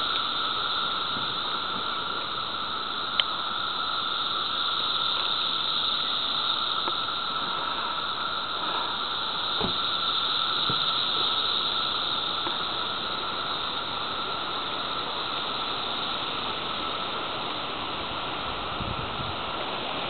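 Chorus of seventeen-year periodical cicadas (Magicicada): a dense, steady buzzing drone. A single brief click about three seconds in.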